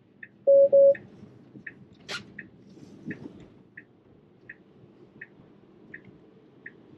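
Tesla Model 3 turn-signal indicator ticking at a steady pace, about one tick every 0.7 seconds, over low road noise in the cabin. About half a second in, the car's chime gives two short, loud beeps at the same pitch, and a single sharp click follows about two seconds in.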